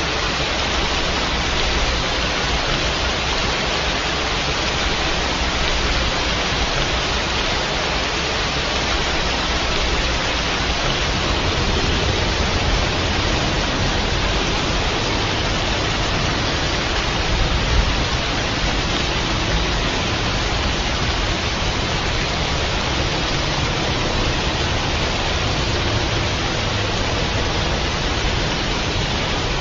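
Steady rain, a continuous even hiss.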